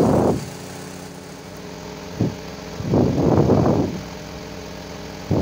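Motorboat engine running at a steady pitch, with loud gusts of wind buffeting the microphone at the start and again about three seconds in.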